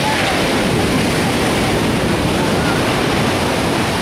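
Ocean surf breaking and washing up the beach, a steady rushing noise, with faint distant voices of people in the water.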